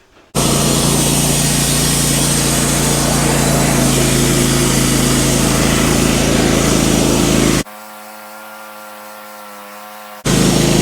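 Wood-Mizer LT15 band sawmill running under load as its blade cuts through an ash log, a steady, loud engine-and-blade noise. About seven and a half seconds in it drops abruptly to a quieter, even engine hum, then comes back loud near the end.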